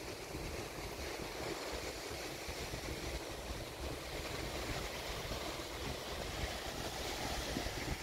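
Small waves washing steadily onto a sandy beach, with wind buffeting the microphone.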